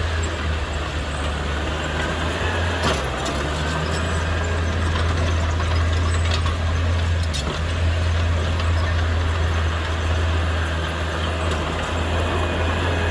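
Heavy diesel engine of earthmoving machinery running steadily with a deep drone. A couple of sharp metallic clanks come about three seconds in and again midway.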